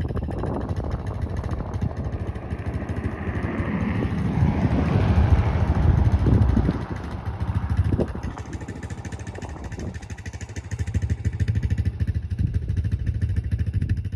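Honda Recon 250 ATV's single-cylinder four-stroke engine running. It gets louder for a few seconds about five seconds in, then eases back and runs steadily.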